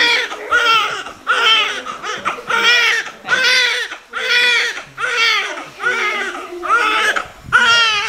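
Newborn baby crying just after birth: a run of loud, high-pitched wails, a little more than one a second, each rising and falling in pitch.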